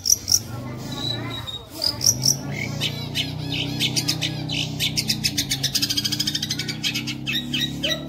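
Long-tailed shrike (cendet) singing a fast, chattering song of rapid high chirps with mimicked phrases mixed in, breaking into a quick rattling trill in the middle.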